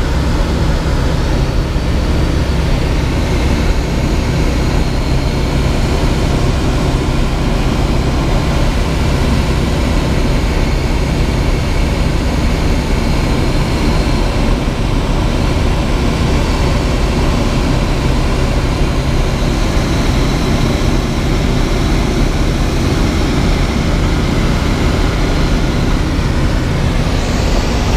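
Ultralight aircraft's piston engine and propeller droning steadily in flight, mixed with the rush of airflow, heard from inside the cockpit.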